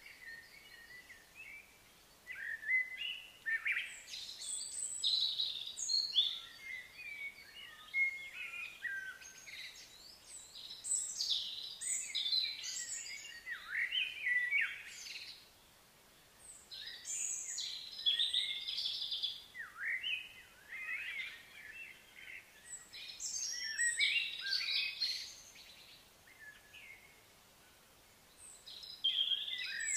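Wild songbirds singing and chirping, in quick high-pitched warbling phrases that come in bouts with short lulls between them.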